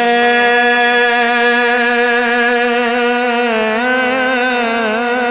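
A man's voice singing one long held note of a Punjabi Sufi kalam, drawn out on a single pitch; about three and a half seconds in the note starts to waver and turn in an ornamented run.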